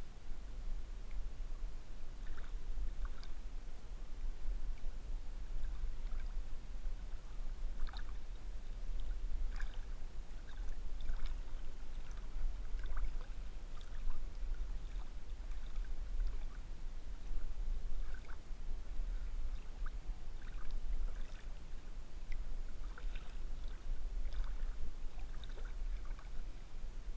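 River water sloshing and lapping around a camera held at the surface during a swim: irregular small splashes and drips over a steady low rumble.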